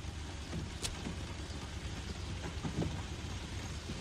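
Old car's engine idling steadily with a low rumble, and a single sharp click about a second in.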